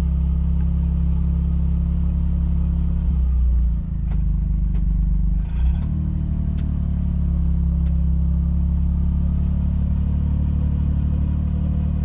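Tractor diesel engine running stationary at about 1350–1500 rpm, a steady drone that wavers twice, about 4 and 6 seconds in. The intermittent fault shows at these revs, which the owner says goes away by about 1600 rpm. A fast high ticking, about three times a second, runs throughout, with a few sharp clicks.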